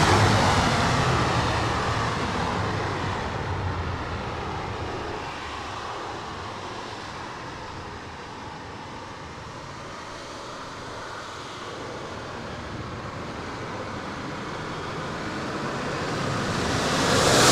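Radio-controlled F-15 Eagle model jet flying by: its engine sound falls in pitch and fades as it moves away, then swells again near the end as it comes back for another pass. Strong wind buffets the microphone throughout.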